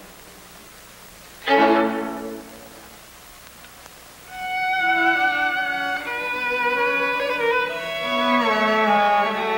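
Film score played on violin: a single loud string note about one and a half seconds in that fades away, then a slow, sustained violin melody begins about four seconds in and carries on.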